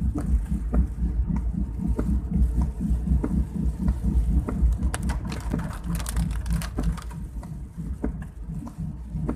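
Rain hitting a moving car, heard from inside the cabin: many irregular drop ticks over a steady low road and engine rumble.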